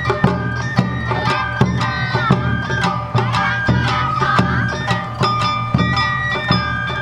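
Awa odori hayashi music: bamboo flutes carry a bending melody over drums keeping a steady beat of about two strikes a second.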